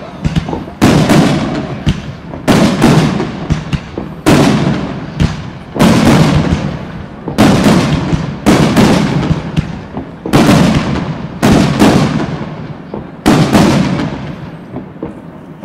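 Aerial firework shells bursting in quick succession, about one loud bang every second or so. Each bang trails off in a rolling echo, and the bursts thin out near the end.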